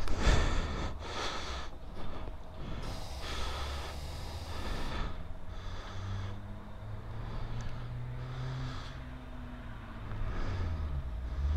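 CF Moto ATV engine idling with a low, steady hum, overlaid by breath-like puffs of noise every second or two.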